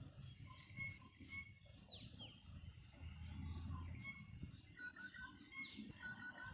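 Faint chirping of small birds: repeated short chirps and a few quick falling whistle notes. A low rumble swells for about a second midway.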